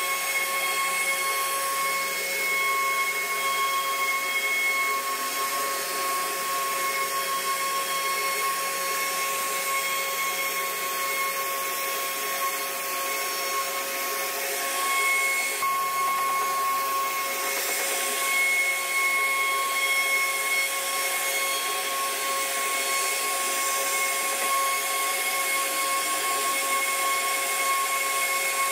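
CNC router spindle carving a wooden panel: a steady high whine over the hiss of the bit cutting wood, running without a break.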